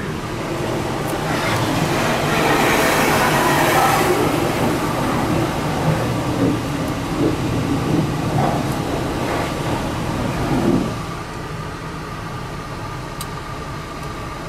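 Touch-free automatic car wash bay, heard from inside a van's cabin as the van rolls in: a loud steady rumble and hiss, strongest in the first few seconds. About eleven seconds in it eases to a lower, steady hum.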